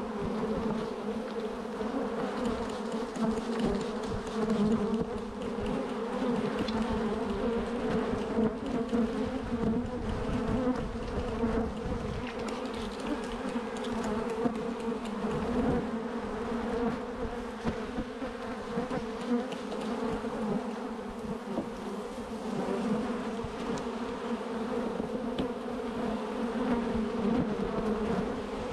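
Many honey bees flying around an opened hive, buzzing in a steady hum.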